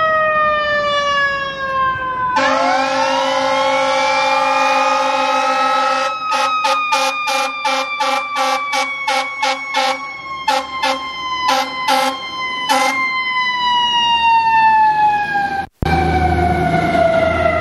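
Fire engine siren, loud: a falling whine, then a rising wail about two seconds in. From about six to thirteen seconds a run of short horn blasts sounds over it, and then the siren winds down again in a long falling whine.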